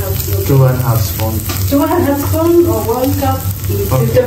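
Grated coconut roasting in a hot pan, sizzling as it is stirred, with a person's voice over it through most of the stretch.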